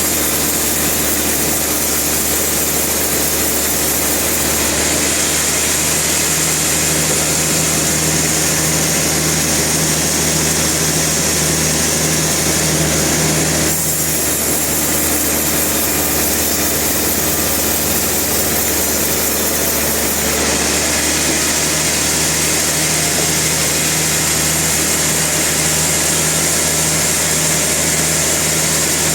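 Sawmill machinery running steadily, an engine drone under the noise of the saw, with the tone shifting about halfway through and again some seconds later.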